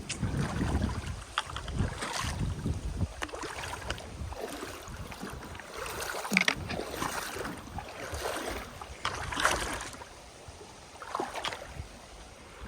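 Wading footsteps sloshing and splashing through a shallow river, one step about every second, with wind rumbling on the microphone.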